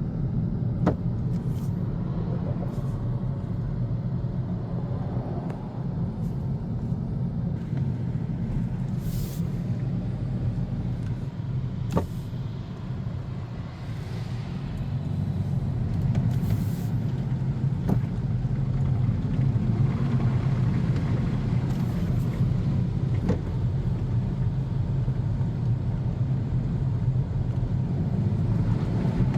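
Car driving, heard from inside the cabin: a steady low rumble of engine and road noise that eases a little about halfway through and then builds again, with a few faint clicks.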